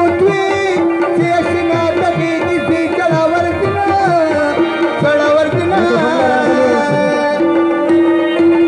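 Live Pashto folk music: tabla-style hand drums played in a quick rhythm, with a bending melody over a steady drone note, which is held plainly near the end.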